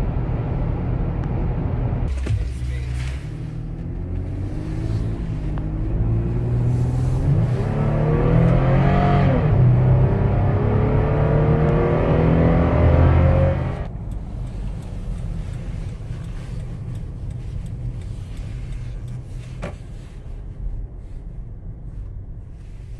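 Toyota 4Runner's 4.0-litre V6 under hard acceleration, heard from inside the cabin: the engine note climbs in pitch, dips briefly at a gearshift about nine seconds in, climbs again, then drops away suddenly as the throttle is lifted about fourteen seconds in, leaving quieter road and engine noise.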